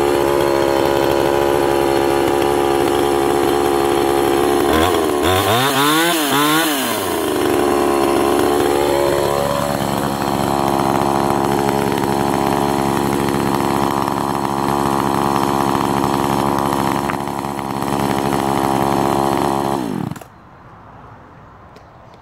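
Castor CX35N two-stroke chainsaw cutting through a larch log. Its engine pitch rises and falls quickly several times about five seconds in, then holds steady and high before stopping suddenly near the end. The engine is not running sweet and the chain snags slightly in the cut, which the owner puts down to the rakers being slightly low.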